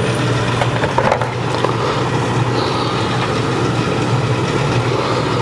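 Wood lathe running steadily at low speed with a green oak bowl blank spinning, a steady motor hum, with a brief knock about a second in.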